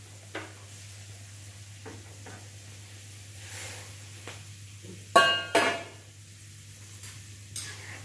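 Metal cookware knocking in a kitchen: a steel kadai of frying vegetables being stirred, with scattered light knocks and two loud metallic clangs about five seconds in that ring briefly, over a steady low hum.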